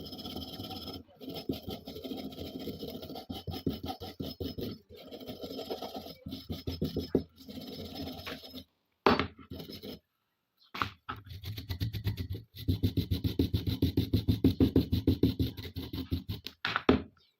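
Rapid back-and-forth abrasive scrubbing, like sanding or filing, on a Glock pistol part during restoration. It comes in several runs that stop abruptly, with a few sharp clicks between them.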